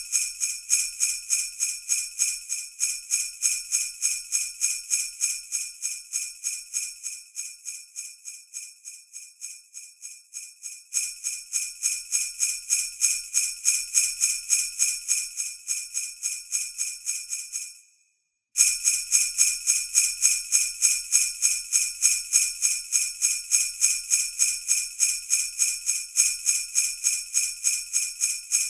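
Sleigh bells shaken in a steady, quick rhythm. The jingling fades quieter for a few seconds, then comes back loud, stops briefly about two-thirds of the way through, and starts again.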